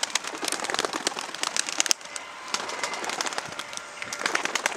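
A small flock of tumbler pigeons landing and settling on gravel ground, wings flapping and clapping in a dense clatter. The flapping thins out about two seconds in and picks up again near the end.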